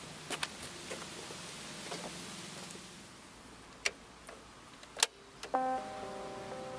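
Sharp mechanical clicks of a portable cassette radio's keys being pressed, the loudest about five seconds in. About half a second later a few held musical notes start up and carry on.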